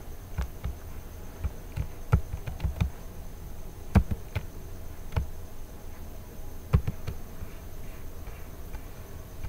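Low steady hum of background noise with a faint high whine, broken by a dozen or so irregular small clicks and taps, the loudest about four seconds in and a pair just before seven seconds.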